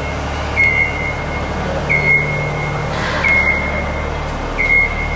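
Reversing alarm on a construction vehicle: four evenly spaced high-pitched beeps, each about half a second long, over a steady low hum.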